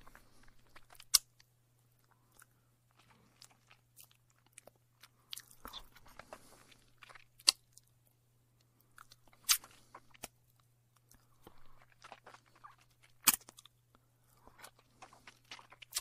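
A thumb being sucked: soft, irregular mouth sucking and smacking sounds, broken by four sharp pops spaced a few seconds apart.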